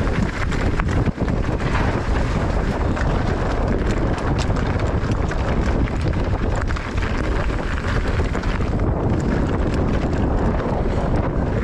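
Wind rushing over the camera's microphone as a mountain bike rides downhill at speed, with tyre noise on dirt and frequent small knocks and rattles from the bike.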